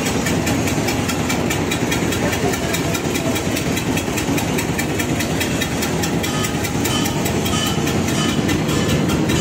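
Single-cylinder diesel engine powering a paddy threshing machine, running steadily with a rapid, even firing beat.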